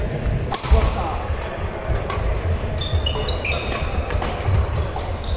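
Badminton doubles rally: several sharp racket-on-shuttlecock hits, with court shoes squeaking on the sports floor and footsteps thudding.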